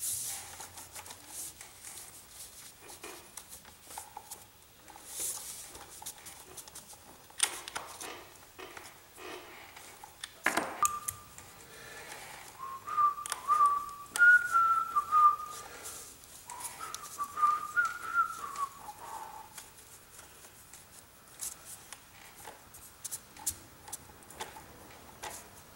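A person whistling a short wavering tune for several seconds in the middle, over scattered clicks and rattles of small parts being handled, with a sharp knock just before the whistling starts.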